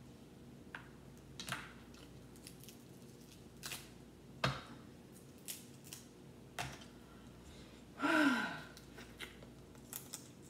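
Crab leg shells cracking and snapping, a handful of separate sharp cracks as the legs are broken apart by gloved hands to pick out the meat. About eight seconds in comes a short voiced "mm" sliding down in pitch, the loudest sound here.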